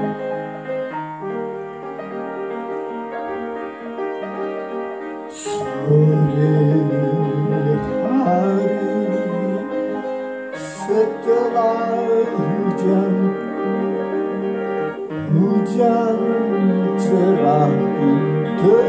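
Upright piano played with both hands, chords under a melody. From about five seconds in, a man sings along over the piano.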